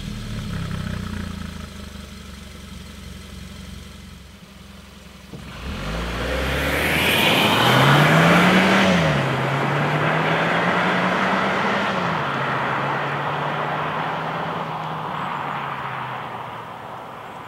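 Hyundai Tucson's 1.6-litre turbocharged four-cylinder idling, heard at the rear exhaust. The SUV then accelerates away with its engine pitch rising, dropping twice as the seven-speed dual-clutch gearbox shifts up about nine and twelve seconds in, and the sound fades into the distance.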